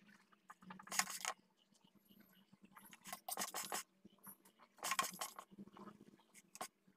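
A spatula scraping and smoothing whipped-cream frosting on a cake, in three short strokes about two seconds apart, with light clinks against the plate.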